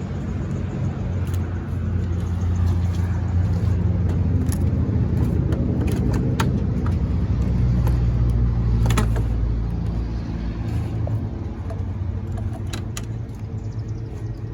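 A motor vehicle engine running steadily, with a handful of sharp metallic clicks and clinks.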